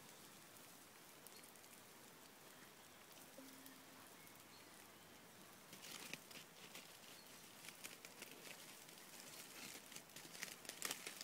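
Faint crackling and popping of a campfire, scattered sharp snaps that grow thicker from about halfway through over a low steady hiss.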